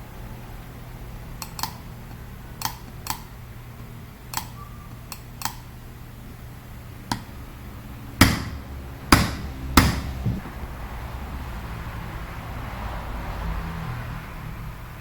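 Metal tools working on an air-conditioning compressor's parts: a run of light, sharp clicks, then three heavier knocks about a second apart.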